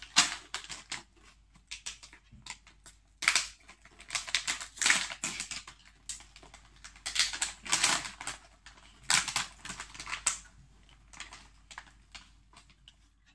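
Crinkling plastic snack bag being handled and opened, in irregular bursts of sharp crackles.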